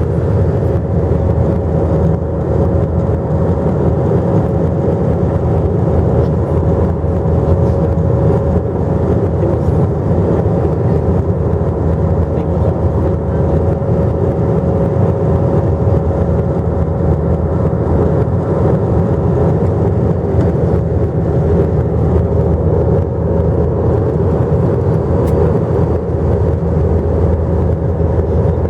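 Jet airliner cabin noise in flight: a steady low rushing drone with a constant mid-pitched hum over it.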